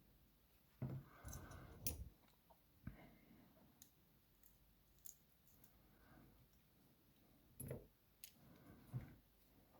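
Small clicks and handling noises from a pin-tumbler lock being taken apart by hand: two short clusters of clicks, about a second in and again near the end, with a few faint single ticks between them.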